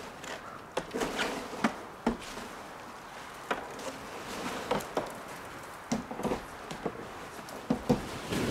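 Plastic snow shovel chipping and prying a sheet of ice off a vinyl trailer cover: irregular sharp knocks, cracks and scrapes, several every second or two.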